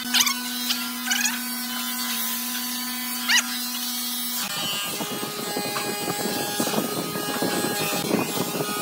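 Small power tool running with a steady hum; about halfway through, the sound turns rough and crackly.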